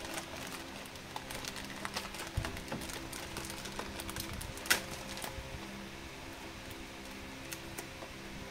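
Thin plastic wrapping and a clear plastic blister tray crinkling and clicking as they are handled, with one sharper click about halfway through. Faint background music with held tones underneath.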